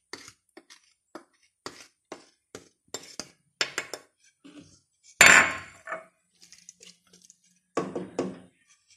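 A wooden spoon knocking and scraping against a plate and the rim of a metal cooking pot as spices are tipped into the pot, a string of light taps with one louder clatter about five seconds in.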